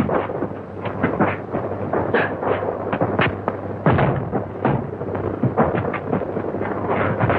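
Fight sound effects from an old film soundtrack: a rapid, irregular run of blows, thuds and crashes, several a second, with a heavier crash about four seconds in, over the steady low hum of the old optical soundtrack.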